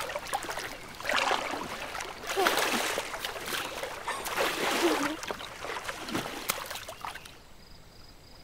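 Water splashing and swishing around a swimmer's body, in several surges about a second long, settling to quiet lapping near the end.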